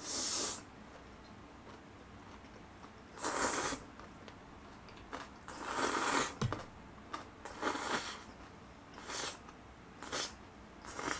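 A person slurping up chewy jjolmyeon noodles, about seven short, loud slurps spaced a second or more apart, coming closer together near the end.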